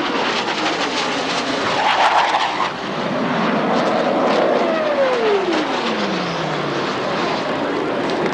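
Blue Angels F/A-18 Hornet jet noise during a flypast. Partway through, a tone in the engine sound slides steadily down in pitch as the jet passes and moves away.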